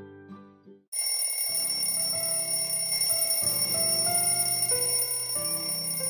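Background music. A plucked-string tune fades out within the first second, and after a brief silence a new tune starts abruptly: a slow melody over held low notes, with steady high tones above.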